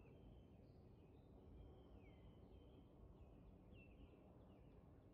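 Faint birdsong: short high whistled notes and repeated downward-sliding calls from small birds, over a faint low steady rumble.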